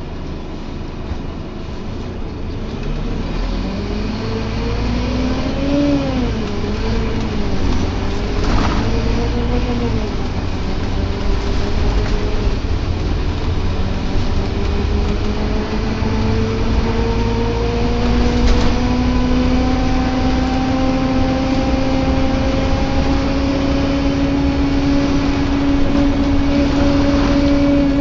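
Scania Omnilink K230UB bus heard from inside while moving: low engine and road rumble under a groaning tone. The groan wavers up and down for a few seconds, then rises slowly and steadily in pitch through the second half.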